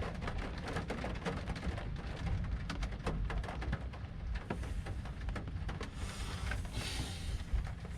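Rain falling, with many separate drops striking close by over a steady low rumble of the storm; a brief louder rush of hiss comes about seven seconds in.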